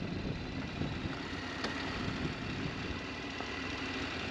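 KTM adventure motorcycle's parallel-twin engine running steadily, picked up muffled through a helmet-mounted GoPro.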